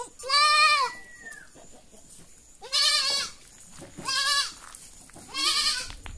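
Goat kids bleating: four high, quavering bleats with pauses between them.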